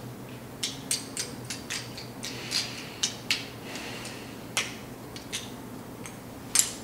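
Irregular light clicks and taps, about fifteen scattered over several seconds with no steady rhythm, the sharpest about halfway through and near the end, over a faint steady room hum.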